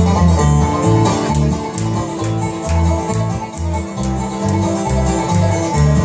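Bluegrass band playing live on acoustic guitar, banjo and upright bass, the bass walking steadily under the picked banjo and strummed guitar.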